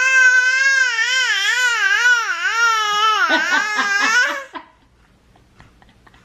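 Three-month-old baby vocalising in one long, loud, wavering sound, its pitch wobbling up and down, that breaks into short choppy pulses and stops about four and a half seconds in.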